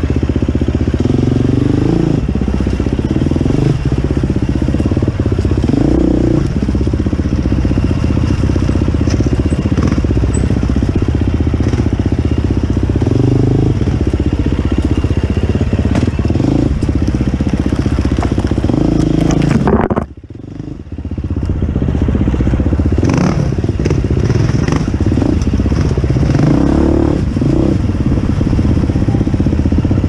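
KTM dirt bike engine running at low revs with repeated throttle blips, the revs swelling and falling every few seconds, with scattered knocks as the bike works over rocks. The sound drops out briefly about two-thirds of the way through, then the engine picks up again.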